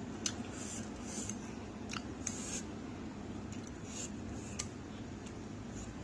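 Close-up eating sounds: chewing noodles and chilies with wet mouth clicks, smacks and short crisp bursts at irregular moments.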